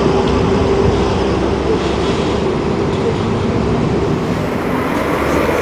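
Diesel engine of a Volvo B58 city bus pulling away up a curve, a steady low rumble mixed with road noise.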